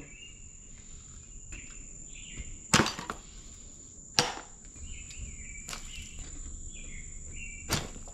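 Four sharp knocks and clunks, a second or more apart and the loudest about three seconds in, as loose parts and junk are handled and set down inside an excavator cab, over a steady high-pitched insect trill.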